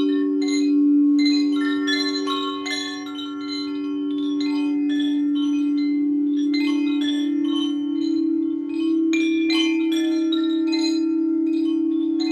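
Chimes ringing in quick, scattered strikes over a steady low humming tone from a crystal singing bowl. The bowl's tone wavers slightly in the second half.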